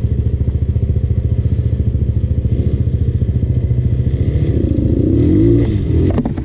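Enduro dirt bike engine running at low revs with a fast, even pulse, picking up briefly about five seconds in. A couple of sharp knocks come near the end.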